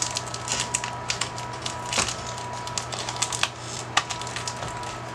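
Hands peeling and pulling tight clear plastic packing off a small orchid pot: irregular crinkling with sharp crackles and clicks, over a faint steady hum.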